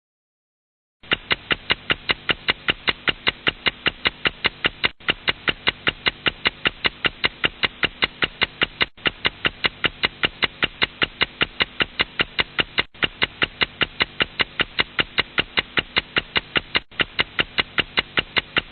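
Clock ticking sound effect: rapid, even ticks about five a second, starting after a second of silence. The pattern restarts about every four seconds, so it is a looped clip.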